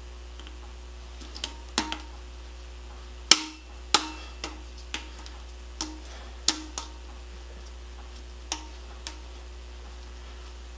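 Plastic hub cover being fitted onto a motorcycle front wheel hub: a series of sharp clicks and taps of plastic against the hub, irregularly spaced. The two loudest come about three and four seconds in.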